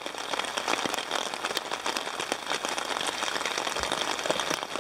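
Light rain falling on a Dunlop VS30 tent, heard from inside: a steady hiss dotted with many small drop ticks.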